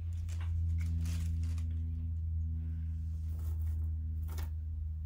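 Steady low hum, with a few light clicks and rattles as small metal chains are picked up and handled.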